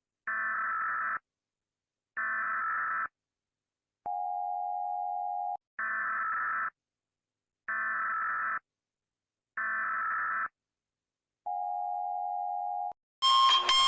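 Electronic emergency-alert tones: five buzzy beeps about a second long, separated by short silences, with a lower plain steady tone sounding twice between them. Near the end a loud siren-like alarm with fast sweeping tones cuts in.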